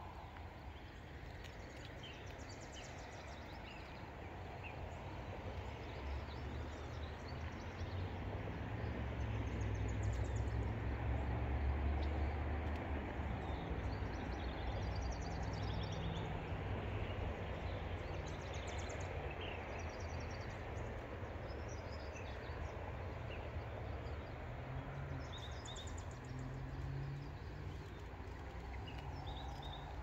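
Wild birds chirping and calling in scattered short phrases over a low rumble of road traffic. The rumble swells to its loudest about ten to thirteen seconds in, like a vehicle passing, then eases back.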